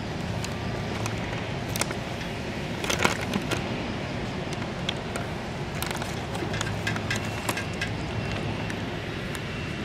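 A cat lapping broth and chewing food from a metal dish at close range: a string of small wet clicks and smacks, thickest about three seconds in. Under it runs a steady low hum.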